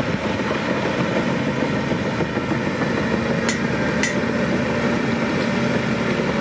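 Shantui crawler bulldozer working, its diesel engine running with a steady clatter as it pushes a pile of dirt.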